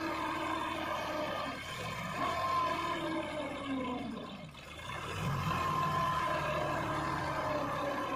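Sonalika 35 DI tractor's diesel engine running under load as it pulls a trolley full of earth through loose sand. Its pitch dips and the sound drops about four and a half seconds in, then climbs back.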